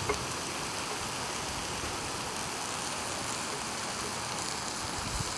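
Pork chops and beef sizzling over hot charcoal on a grill's wire rack: a steady, even hiss.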